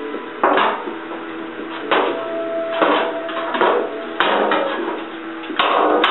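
Background music with held notes and a percussive beat.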